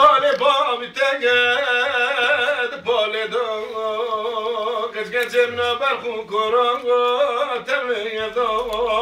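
A man singing unaccompanied, holding long wavering notes with a few short breaks for breath between phrases.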